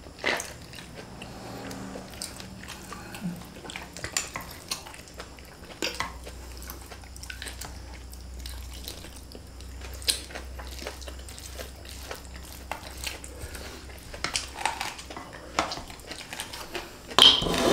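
People eating fried flat rice noodles: chewing, with plastic spoons clicking against a metal tray and a glass bowl in short scattered taps, and one louder clatter near the end.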